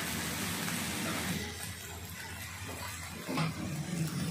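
Water spinach stir-frying in a wok, a steady sizzle that is louder for the first second or so and then softer.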